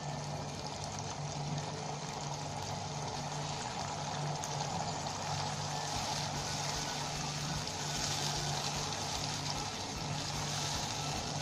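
Blended tomato and onion paste sizzling steadily in hot oil in a nonstick pan, with a silicone spatula stirring it in the second half.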